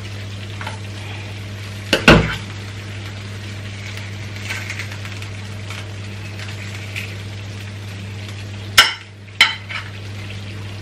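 Metal spoon stirring and scraping roast chicken and potatoes in a ceramic baking dish, with a few knocks of the spoon against the dish: a loud one about two seconds in and two sharp clicks near the end. A steady low hum runs underneath.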